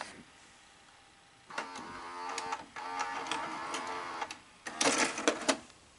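A VCR's tape mechanism running: a small motor whirring from about a second and a half in, then a quick run of clicks and clunks near the end.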